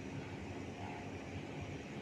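Steady background noise with a low rumble and hiss and no distinct events.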